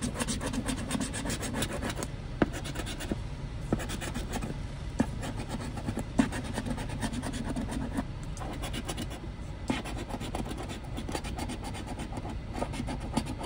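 A coin scratching the scratch-off coating off a paper lottery ticket in rapid back-and-forth strokes, with a few sharper clicks along the way.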